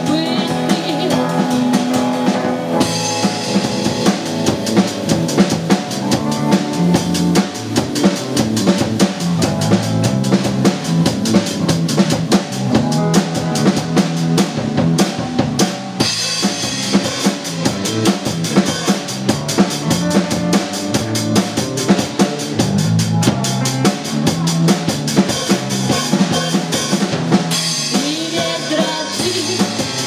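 Live rock band playing an instrumental passage: a drum kit keeps a steady beat under electric bass, keyboard and guitar, with no lead vocal until a voice comes back near the end.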